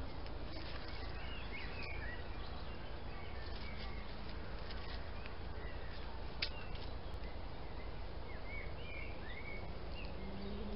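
Birds chirping in short, quick phrases around two seconds in and again about nine seconds in, over a steady low hum and hiss, with one sharp click just after six seconds.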